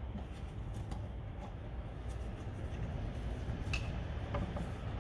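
A few faint clicks and light knocks of metal brake parts being handled, over a steady low background rumble.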